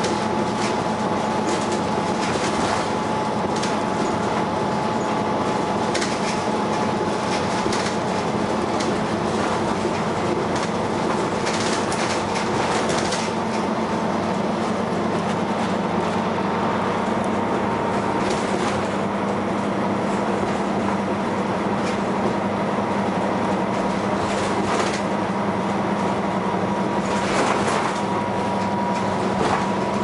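Dennis Arrow double-decker bus with a ZF automatic gearbox, heard from inside the saloon while under way: the engine and driveline run steadily with a thin whine that creeps slowly up in pitch. Occasional rattles and bumps come from the body.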